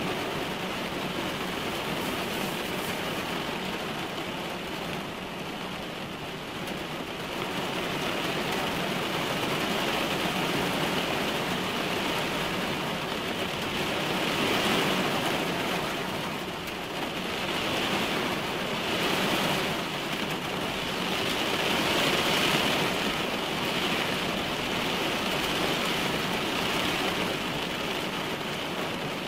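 Heavy rain falling on a car's roof and windshield, heard from inside the car, with the downpour coming in louder waves several times.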